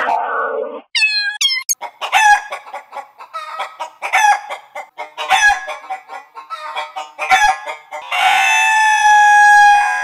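Electronically altered chicken sound effects. A run of short, quick clucks gives way to a long, held rooster crow over the last two seconds. At the very start there is the brief tail of a distorted cat meow.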